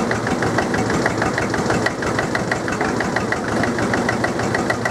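Diesel engine of a Drott 100 loader struggling through a cold start, running with a steady, even knock about eight times a second.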